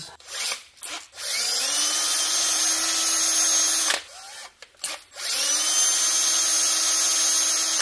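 Milwaukee cordless drill spinning a Scotch-Brite pad to polish rust off brake caliper guide pins. A few brief trigger blips come first, then two long runs, each opening with a rising whine as the motor spins up. The second run starts about five seconds in.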